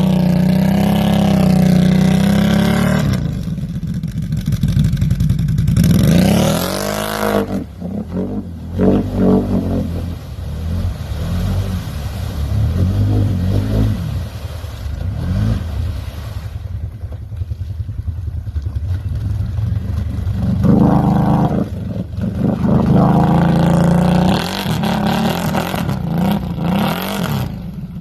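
Off-road vehicle engines revving hard and easing off again and again, the pitch climbing and dropping with each throttle blip, over a steady engine drone.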